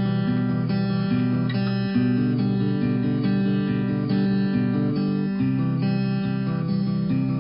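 Background music: a guitar-led track with notes changing in a steady rhythm.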